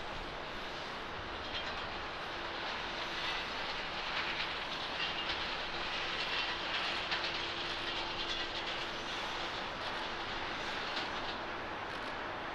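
Airbus A330-243 jet engines on final approach to landing: a steady rushing drone with a faint whine, swelling a little in the middle.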